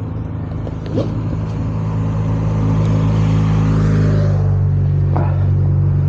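Kawasaki Ninja 250R's parallel-twin engine idling steadily. Another motorcycle passes on the road, its noise swelling to a peak about three to four seconds in, then fading.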